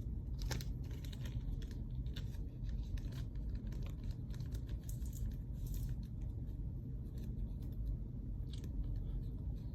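Faint plastic crinkling and small clicks as a trading-card holder is worked into a small plastic bag, a tight fit, over a low steady hum.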